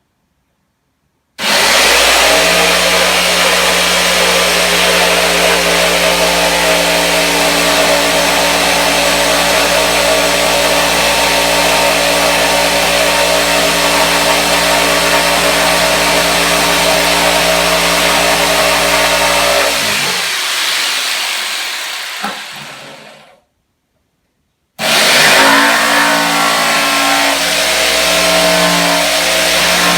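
An electric motor running loud and steady at a constant speed. It stops about 20 seconds in and fades away over a few seconds, then starts up again near the end.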